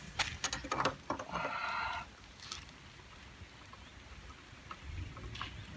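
Pliers clicking and scraping on a stuck, rusted handlebar bar-end slider of a Suzuki GSX-R 1000 K1 as it is forced out: a few sharp clicks, then a short rasping scrape about a second and a half in, with further clicks later. Light rain patters underneath.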